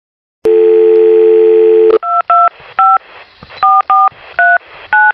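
A telephone line clicks open about half a second in and a steady dial tone sounds for about a second and a half, then it cuts to touch-tone dialing: seven short two-note keypad beeps at an uneven pace over a faint line hiss.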